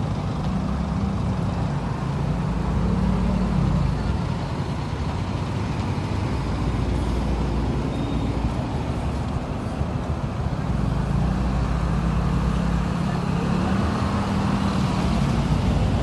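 Bus engine running under load with a steady low drone, its note swelling and shifting a couple of times, over road and traffic noise.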